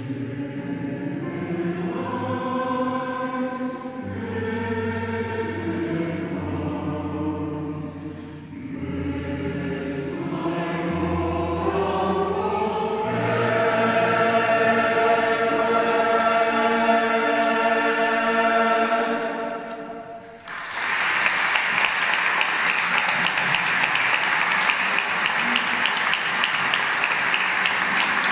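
A choir singing the closing phrases of a song, ending on a long held chord that fades out. About two-thirds of the way through, the audience breaks into applause.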